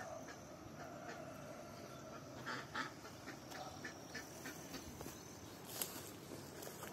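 Farmyard poultry calling off and on, faint, with a single sharp click about six seconds in.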